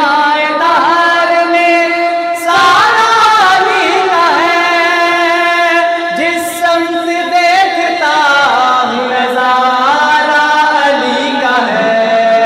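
Two male voices singing a durood (devotional blessing on the Prophet) together into handheld microphones, in long held notes that bend and waver in pitch.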